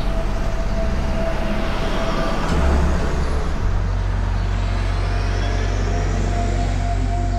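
A heavy road vehicle's engine running steadily, with a brief swell near the middle and a deeper drone setting in a little past halfway.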